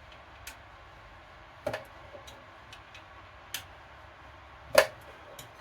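Sharp clicks and knocks of metal parts being handled on a Bucktool BD4603 belt-and-disc sander while its belt arm is loosened and repositioned. There are about six irregular ones, the loudest a little before the end.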